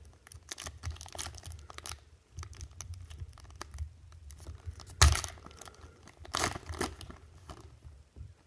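A trading-card pack's wrapper being torn open and crinkled by hand, in a run of short rips and rustles, loudest about five seconds in and again a little after six seconds.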